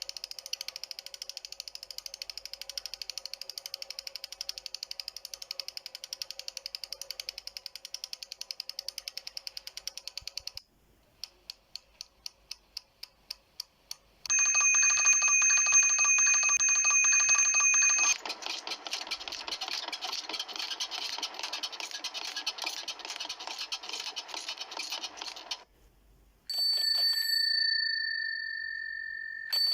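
A run of bicycle sounds. First a freewheel hub ticks rapidly while the wheel coasts, then the ticks slow. Then a bicycle bell rings for about four seconds, the rapid ticking returns, and a single bell ding dies away near the end.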